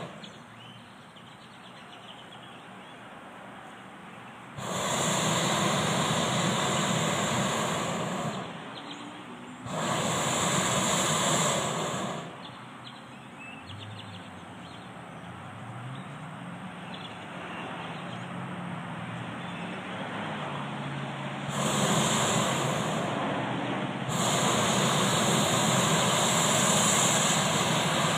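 Hot air balloon's propane burner firing in blasts of a few seconds, each starting and stopping abruptly. There are three blasts about 4.5, 10 and 21.5 seconds in, and the last runs on with a brief break. A lower, steadier rumble fills the gaps between them.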